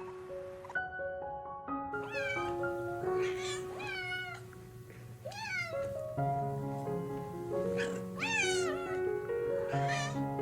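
A cat meowing repeatedly, about six separate calls that rise and then fall in pitch, over light background music with a stepping melody.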